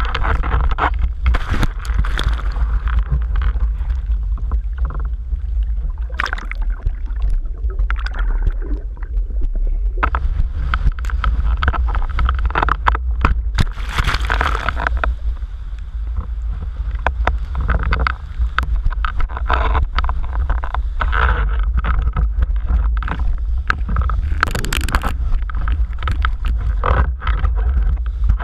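Wind buffeting the microphone of a rig-mounted camera on a windsurfer sailing fast through choppy water, with rushing spray and water splashing against board and sail. The spray hiss surges irregularly, strongest about halfway through and again near the end.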